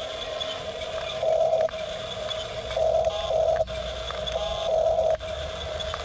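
A toy RC bulldozer's small electric drive motors and plastic gearboxes whine as its tracks crawl and push through loose gravel. The sound swells several times and cuts out briefly every second and a half or so.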